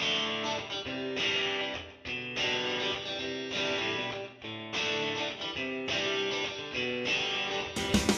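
Background music: guitar chords played in a steady repeating pattern, with a louder, fuller sound coming in near the end.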